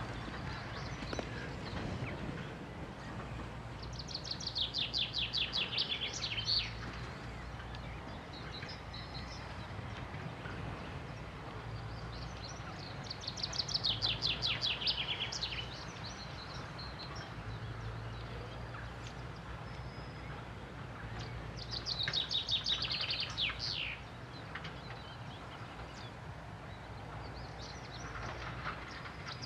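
A songbird repeats a fast, trilled song phrase four times, each about three seconds long and several seconds apart. Under it runs a steady low engine hum.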